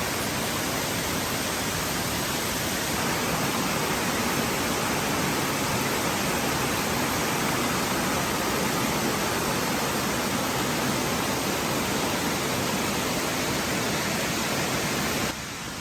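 Steady rush of falling water from the Kuang Si waterfall cascades, an even hiss across all pitches, dropping abruptly to a quieter level near the end.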